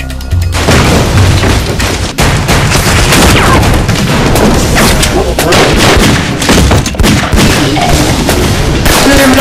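Sustained movie gunfire sound effects, a dense run of rapid shots and booms that starts about half a second in and keeps going without a break.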